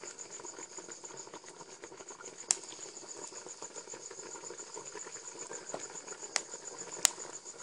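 Insects chirping in a steady, even, high-pitched pulsing trill, with three sharp clicks: one about two and a half seconds in and two near the end.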